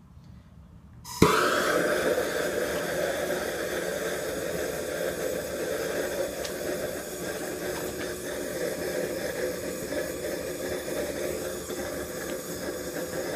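Bernzomatic TS8000 MAPP gas torch lighting about a second in with a sharp pop, then burning with a steady hiss as its flame fires into a firebrick forge.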